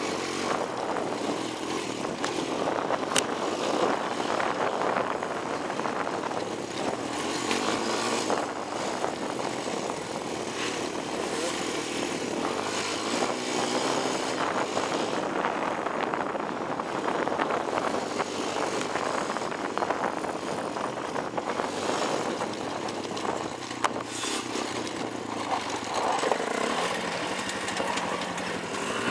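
Honda TRX250EX ATV's single-cylinder four-stroke engine running and revving as it is ridden along a rough dirt trail, mixed with a steady rushing noise over the microphone and the occasional sharp knock.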